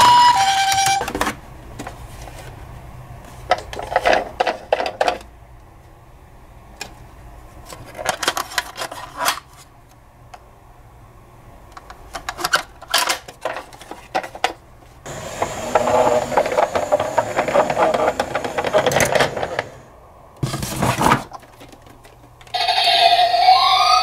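A toy ambulance's electronic two-tone siren cuts off about a second in. Then come clicks, knocks and cardboard and plastic rustling as toys are handled in a box, louder for a few seconds past the middle. Near the end a battery toy ambulance's electronic wail siren starts, rising in pitch.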